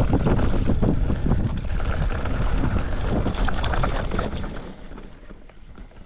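Wind buffeting the microphone over the clatter and rattle of a mountain bike riding a rough trail, dying down about four and a half seconds in.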